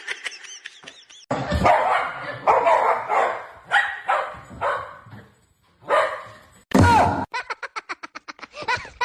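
A dog barking in repeated short barks, with a pause a little past the middle and a fast run of short sounds near the end.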